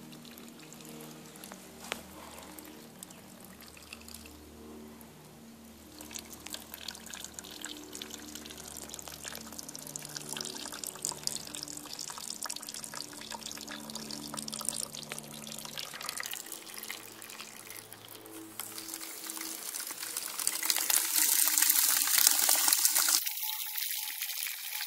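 Liquid pouring and splashing into a plastic bucket as a dish-soap and water mix is made up, over background music. The water gets louder and more splashy about 20 seconds in. The music cuts out shortly before the end, leaving the water running.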